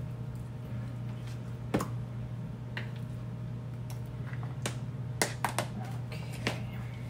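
Metal spoon scooping avocado flesh from the skins into a plastic container: scattered light taps and clicks, with a quick cluster of them about five seconds in, over a steady low hum.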